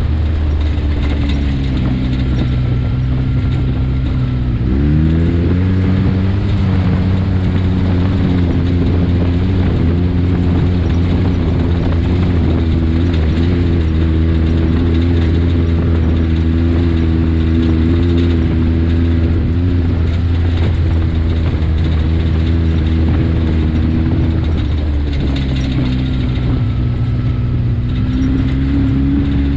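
Side-by-side UTV engine running while driving a dirt trail. Its pitch sags over the first few seconds, rises about five seconds in and holds steady for a long stretch, then drops back and picks up slightly near the end.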